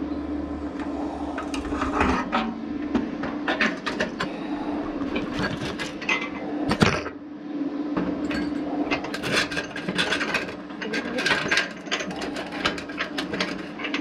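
MIG welding on thin sheet steel with a new 5-in-1 welder: an irregular crackle from the arc over the welder's steady hum, with one sharp click about halfway through.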